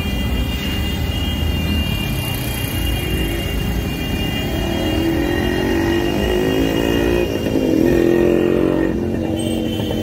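Motor vehicle engine noise by a road, a steady rumble with a few steady high tones above it. From about halfway through, an engine's pitch rises and falls, loudest near the eighth second.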